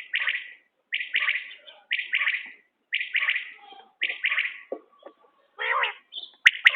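Common quail calling: a short phrase of quick notes repeated about once a second, with a few sharp clicks near the end.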